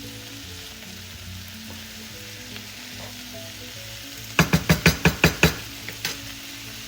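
Sliced banana blossoms sautéing with garlic and onions over medium-high heat, a steady sizzle. About two-thirds of the way through, a quick run of about eight sharp knocks as a utensil stirs against the pan, then one more knock.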